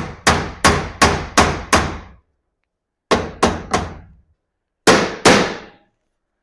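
Claw hammer striking the steel garage door track to bend it closed again after a roller change. Sharp ringing metal blows in three quick runs: about six, then three, then two.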